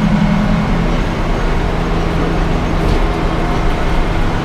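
Sawmill machinery running steadily, a constant low mechanical hum with steady pitched tones.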